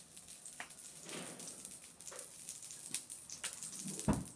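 A little cooking oil heating in a frying pan on a charcoal stove, with faint sizzling and scattered small crackles. One louder knock comes near the end.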